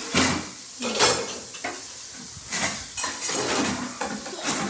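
Kitchen dishes and utensils clattering and scraping in about five short bouts.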